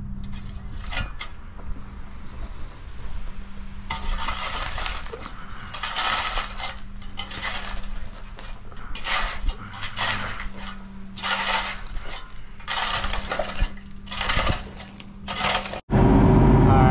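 A metal-headed hand hoe scrapes and drags loose dirt in a series of rough strokes about a second apart, with light metallic clinks over a steady low hum. In the last second it cuts to a skid steer engine running loud.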